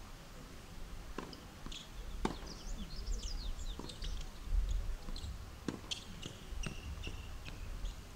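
Tennis ball being hit back and forth in a rally on a hard court: about five sharp pops of ball on racket and court, a second or so apart, with birds chirping in between.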